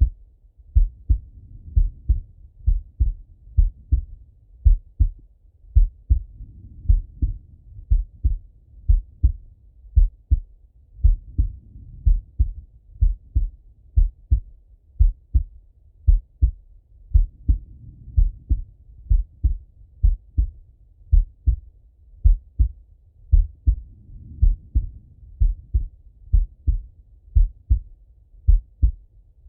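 A man's slow heartbeat heard through a Littmann stethoscope: steady lub-dub pairs of dull, deep thumps. A soft rushing swells and fades every five or six seconds beneath them.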